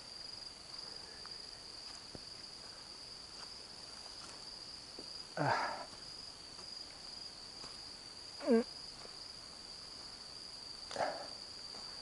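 Insects chirring in a continuous high-pitched trill, with three short louder sounds: about halfway, about two-thirds of the way in, and near the end.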